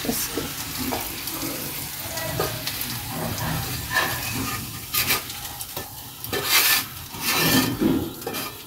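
A tadka of hot ghee with cumin and fried garlic is poured over cooked chana dal and bitter gourd in a pan and sizzles. Stirring sounds run under it, and several short, louder sizzles come in the second half.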